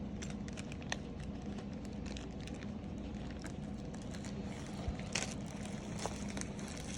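Plastic packaging crinkling and rustling in scattered small clicks as unboxed items are handled, with a sharper rustle about five seconds in, over a steady low hum.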